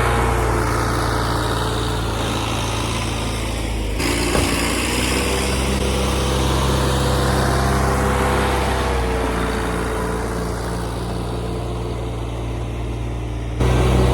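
Old John Deere backhoe's diesel engine running steadily under load. The sound changes abruptly twice, about four seconds in and near the end.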